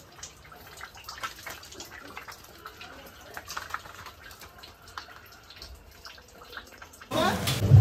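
Water dripping and trickling after a hailstorm, with scattered irregular drips. About seven seconds in, loud music and a voice suddenly cut in.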